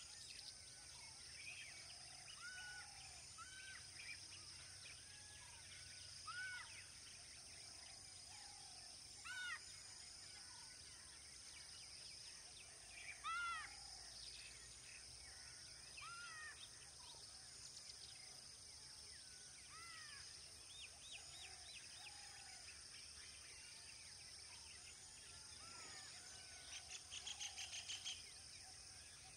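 Faint outdoor ambience of birds calling: scattered short, arched chirps and whistles over a steady high hiss. Near the end comes a fast rattling call of about eight quick pulses a second.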